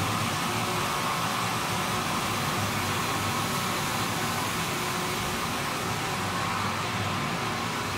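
PVC profile extrusion line machinery running in the workshop: a steady hum and hiss with no rhythm or sudden events.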